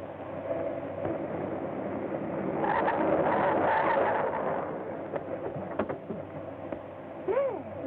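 A train rushing past a crossing: a swell of rushing noise that builds about two and a half seconds in, is loudest in the middle and then fades, over the hiss of an old film soundtrack. A short sliding tone rises and falls near the end.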